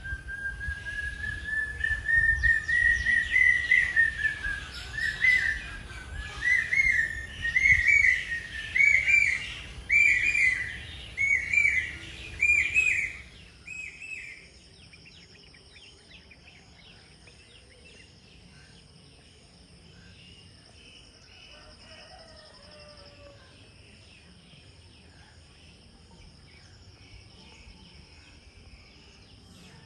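A bird calling loudly: one long whistled note that slowly rises, then a series of short whistled notes about one a second that stops about halfway through. After that only a faint steady high-pitched hum remains, with a few distant faint calls.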